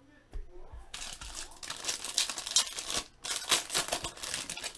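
Foil wrapper of a trading-card pack being torn open and crinkled by hand. The crackling starts about a second in, after a few soft handling bumps, and pauses briefly once before going on.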